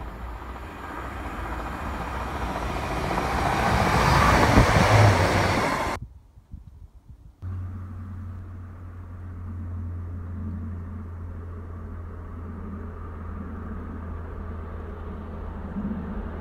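A diesel train approaching and running past, growing louder to a peak about four to five seconds in before the sound cuts off abruptly. After a short quiet gap, a steady low rumble as a train approaches through the tunnel.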